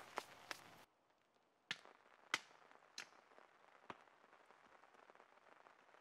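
Small campfire of burning sticks crackling quietly, with a few sharp single pops spaced out through the first part.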